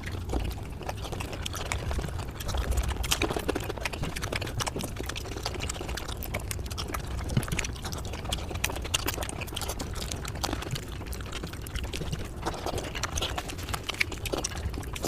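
Close-miked eating sounds sped up about five times: a dense, continuous run of wet chewing, slurping and clicking mouth noises.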